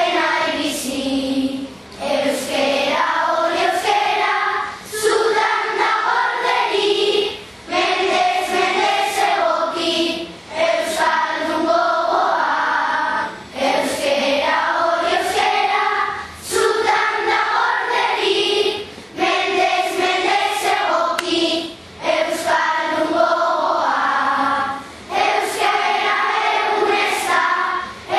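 A choir singing a song in Basque, in sung phrases broken by short breaths every two to three seconds.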